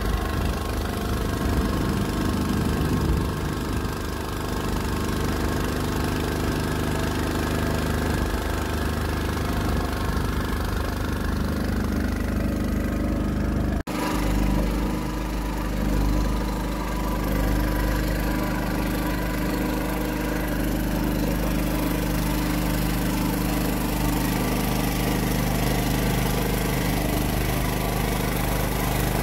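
Small boat's motor running steadily under way, with a momentary dropout near the middle.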